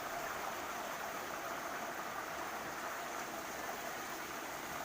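Steady rushing of a small waterfall and mountain stream, an even hiss of falling water with no breaks.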